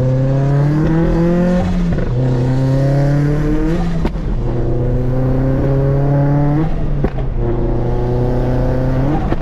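Turbocharged Scion FR-S flat-four with a Tomei titanium catback exhaust, accelerating through the gears. The engine note rises steadily, then drops sharply at each upshift, about three times.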